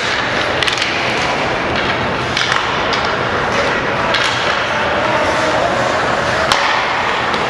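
Ice hockey play in an arena: skate blades scraping the ice under a steady din, with sharp clacks of sticks and puck several times.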